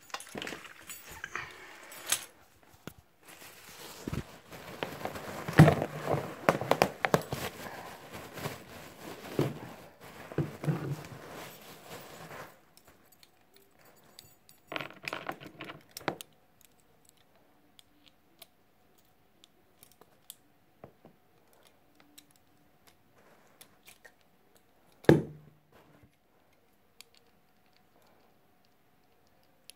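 Metal handcuffs being handled, their links and ratchet jangling and clicking in a dense rattle for about the first twelve seconds. A shorter rattle follows a few seconds later, and there is one sharp metal clack about 25 seconds in.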